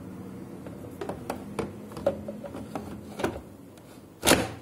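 Plastic knocks and clicks of a toner cartridge being slid into a Samsung colour laser printer's cartridge bay, ending in one loud clunk about four seconds in as it is pushed home.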